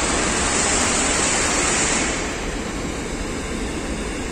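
Steady, loud rushing noise with no clear pitch, dropping a little in level about two seconds in.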